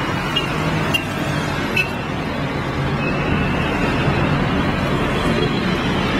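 Road traffic: cars driving by in a steady rush of engine and tyre noise, with a few light clicks in the first couple of seconds.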